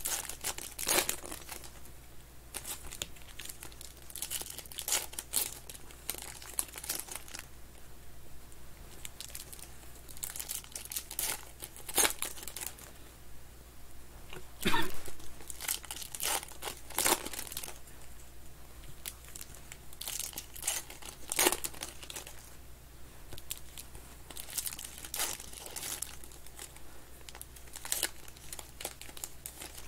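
Foil wrappers of 2021 Panini Contenders football card packs crinkling and tearing as they are opened by hand, in irregular sharp crackles, the loudest about fifteen seconds in.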